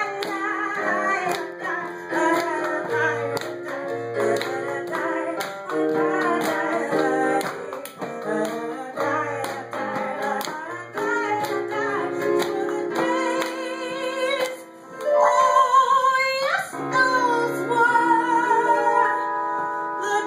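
A woman singing with Yamaha keyboard accompaniment: rhythmic chords for most of the time, then from about fifteen seconds in she holds long notes, one sliding sharply upward.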